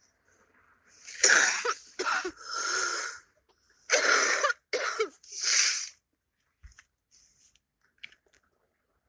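A woman coughing in a fit: a run of three coughs about a second in, then another run of three about four seconds in.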